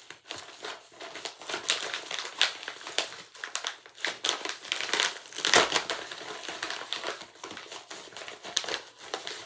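Packaging crinkling and rustling in irregular handfuls as a mailed package is unwrapped by hand, with one louder crunch about halfway through.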